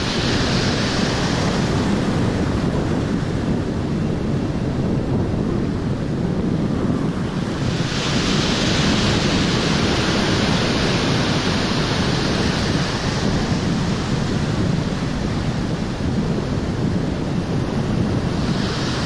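Ocean surf breaking and washing in a steady rush, with wind buffeting the microphone; the hiss of the breaking waves swells at the start, again about eight seconds in for several seconds, and once more near the end.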